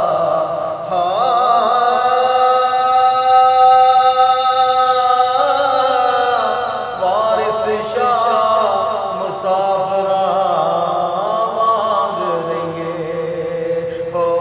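Singer holding long, drawn-out notes of a Punjabi devotional song without words, with wavering, ornamented runs in the middle and a lower held note near the end.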